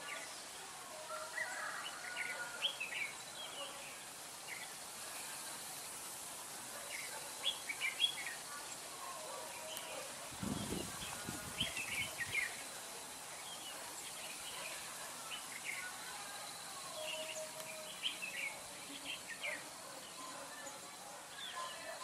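Red-whiskered bulbuls calling: short chirps and warbled phrases come and go throughout. A brief low rumble is heard about halfway through.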